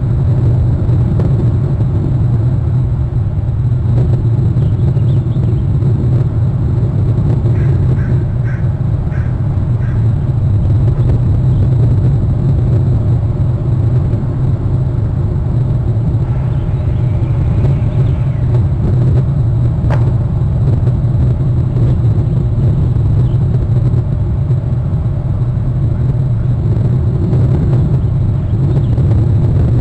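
A loud, steady low rumble, with a few faint short bird calls about eight seconds in and a single click near the two-thirds mark.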